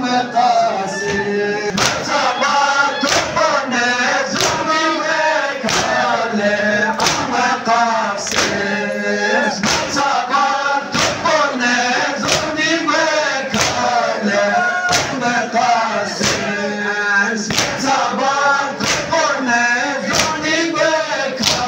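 A crowd of men chanting a noha in unison, with steady rhythmic chest-beating (matam) thumps about three every two seconds.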